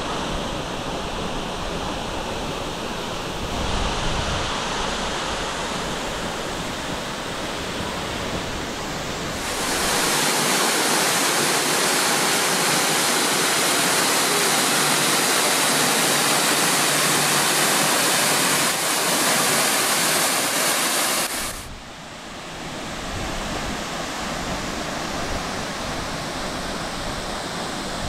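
Horsetail Falls plunging into its pool: a steady rush of falling water. From about a third of the way in it turns louder and more hissing for roughly ten seconds, then drops back to a softer rush.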